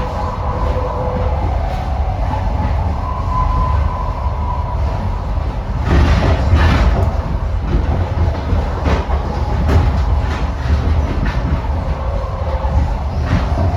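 Passenger train running on the rails, a steady low rumble with wheels clacking over rail joints at uneven intervals.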